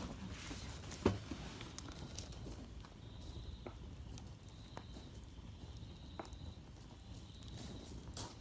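Wood campfire crackling faintly, with scattered sharp pops every second or so.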